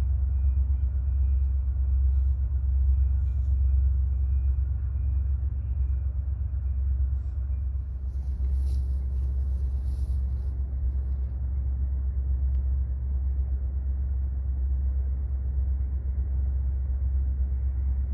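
Steady low rumble that swells and eases, with a few faint, brief high-pitched sounds about halfway through.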